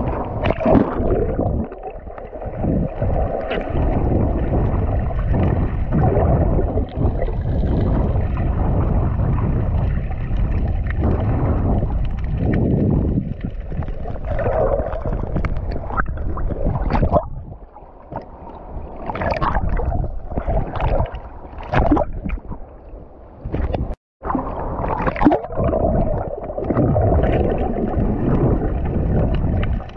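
Seawater sloshing and gurgling against a camera held at and below the surface: a muffled, churning rush with scattered splashes and knocks. The sound drops away in quieter stretches toward the last third and cuts out briefly once.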